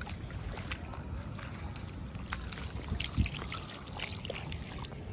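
Water running from a plastic garden hose onto a wet concrete slab: a steady gush and splash with scattered small ticks, and a soft knock about three seconds in.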